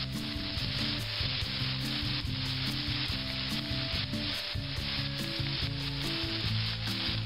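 Chicken breasts searing in a stainless steel skillet over medium-high heat under a mesh splatter screen, sizzling steadily.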